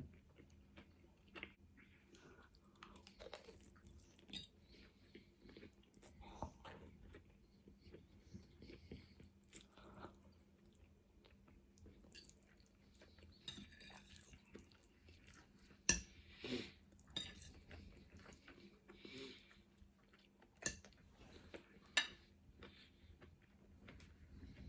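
Faint chewing and eating noises from a person eating noodles and chicken nuggets, with scattered small clicks and a couple of sharper taps about two-thirds of the way through and near the end.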